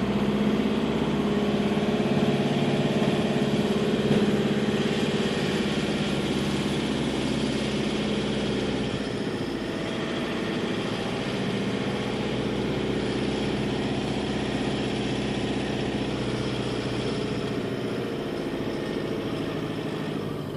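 Rover 45's 2.0-litre diesel engine idling steadily, its speed dipping slightly about halfway through. It carries the odd noise that the owner has heard for several days and cannot identify, which he takes for a metallic rattle, perhaps from the air conditioning.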